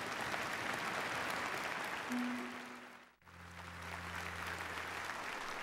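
A large audience applauding, with held instrumental notes underneath: a higher note, then a low note after the sound drops out for an instant about three seconds in.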